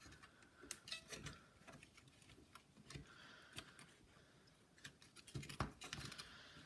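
Faint, scattered clicks and taps of laptop parts being handled as the motherboard is settled into the chassis, with a few slightly louder clicks near the end.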